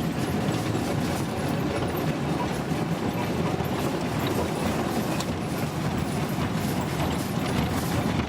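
Small open trolley train running along its narrow-gauge track: a steady rumble of wheels on rail with light clicking and clatter.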